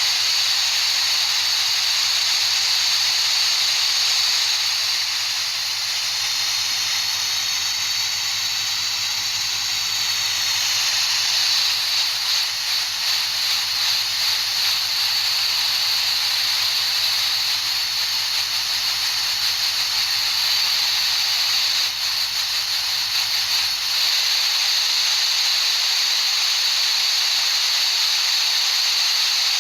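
Steady high-pitched hiss of a tinnitus-masking noise track. A faint wavering tone shows in the hiss for a few seconds about a fifth of the way in.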